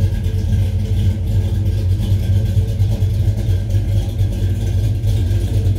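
Small-block 355 V8 idling steadily through Hooker headers and dual exhaust, an even low hum.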